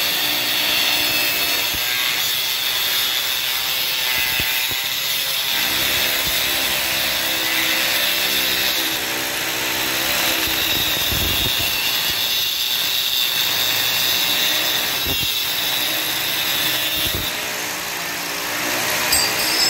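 Handheld angle grinder with a cut-off disc cutting through steel bars, a steady high grinding whine. It eases off near the end as the disc comes out of the cut.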